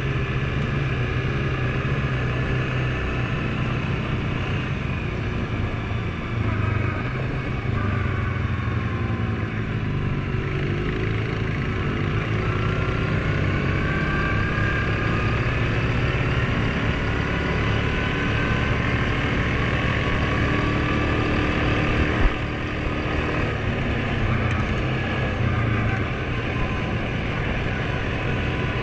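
Suzuki KingQuad ATV engine running underway on a dirt trail, its pitch slowly rising and falling as the throttle changes. Steady road and wind noise runs underneath, and there is one sharp knock about 22 seconds in.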